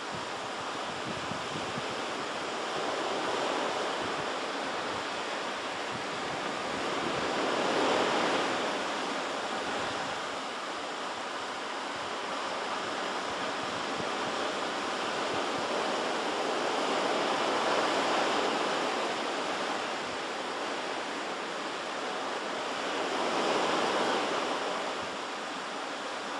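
Ocean surf breaking on the shore: a steady rush of water that swells and eases several times as waves come in.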